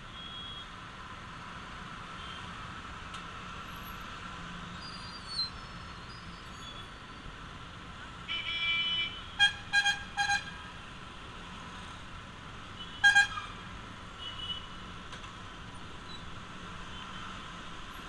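Steady traffic noise in slow, congested road traffic, broken by vehicle horns: a longer honk about eight seconds in, three quick toots right after, and one more toot about three seconds later.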